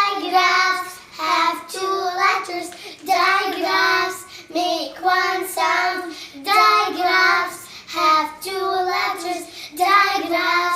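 A child singing a short, unaccompanied tune in held, evenly paced syllables.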